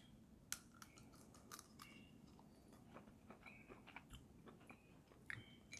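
Faint, close-miked chewing: soft wet mouth clicks and smacks scattered through a near-silent room, a few a little louder about half a second in and near the end.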